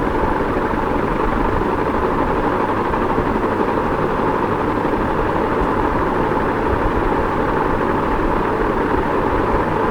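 Ceiling fan running at a steady speed: an even rush of moving air with no rhythm or change in level.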